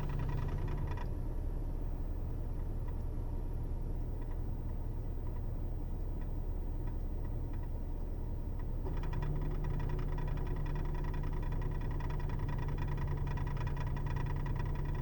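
2008 Ford Taurus X's 3.5-litre V6 idling with a fast, faint ticking. About a second in the ticking and a low hum fall away, and around nine seconds in they return, with the ticking more pronounced as the AC compressor kicks on. The owner suspects the tick is transmission related.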